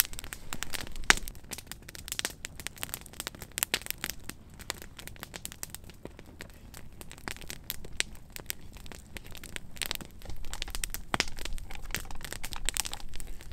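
Crinkling and crumpling of a dehydrated-meal pouch being handled as it is filled with hot water, over irregular crackles and pops from a campfire.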